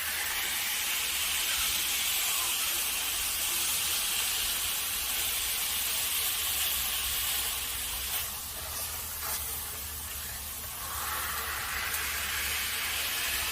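Ground-beef smashburger patties sizzling steadily on a hot Blackstone flat-top griddle, a constant hiss with a few light clicks.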